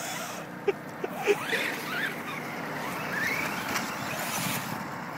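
Radio-controlled short-course truck's motor whining up and down in pitch as the truck speeds up and slows over grass, with a few sharp clicks about a second in.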